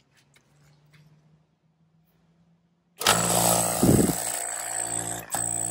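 A Yellow Jacket SuperEvac rotary-vane vacuum pump switches on abruptly about three seconds in and runs steadily with an even hum and a high whine. Its intake is uncapped, so it runs unloaded while warming its oil for an oil change.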